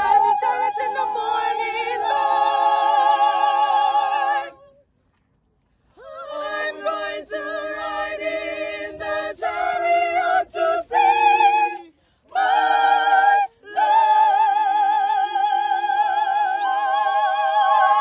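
Choir singers singing a cappella in harmony, holding long notes with vibrato. The singing breaks off into silence for about a second roughly five seconds in, and twice more briefly later on.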